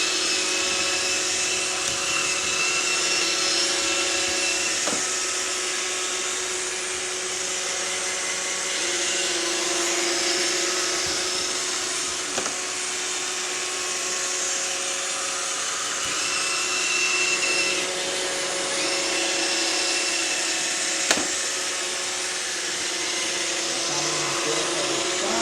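iRobot Roomba 620 robot vacuum running with a steady motor whine and brush hiss, on a spot-cleaning cycle. A few light clicks come through along the way.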